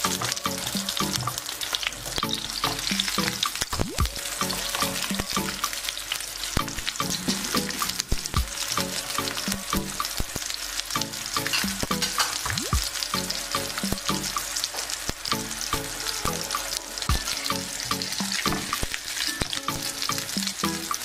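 Minced-beef patties sizzling steadily in hot oil in a nonstick frying pan. A silicone spatula and a fork click against the pan now and then as the patties are turned.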